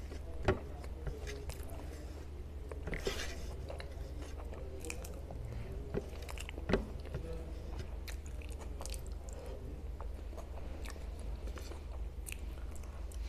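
A person chewing mouthfuls of pav bhaji, soft bread rolls and vegetable mash, with wet mouth sounds and a few sharp clicks, the loudest about half a second in and about halfway through, over a steady low hum.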